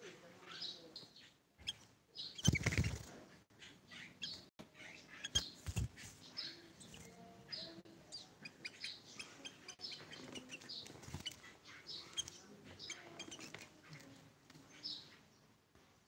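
Sooty-headed bulbul giving short, high chirps again and again. A loud rustle about two and a half seconds in, and a few dull thumps near six seconds.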